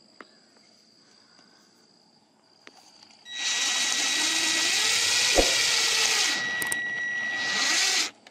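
Cordless drill driving a screw into the side of an old refrigerator, running with a steady whine for about three seconds from a few seconds in, then a short second burst near the end.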